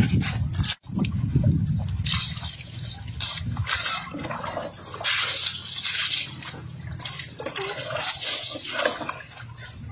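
Water splashing and trickling in irregular bursts as it is poured from a plastic bowl over bare legs and runs onto the ground. The sound cuts out for an instant about a second in.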